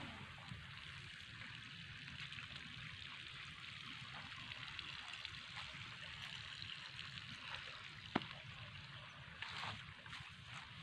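Faint, steady outdoor ambience with a hiss like trickling water, and one sharp click about eight seconds in.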